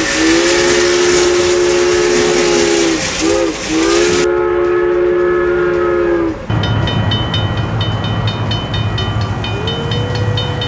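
Steam locomotive whistle sounding a chord over a hiss of steam: a long blast, two short toots about three seconds in, then another long blast that stops about six seconds in. After that comes a steady low hum with a fast, regular ticking.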